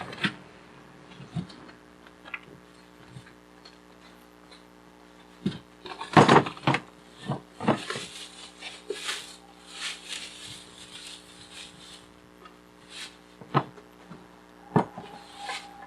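A new air compressor being lifted and worked out of its cardboard shipping box: scattered knocks and bumps, with a stretch of cardboard and packing rustling and scraping around the middle, the loudest knock about six seconds in. A faint steady hum runs underneath.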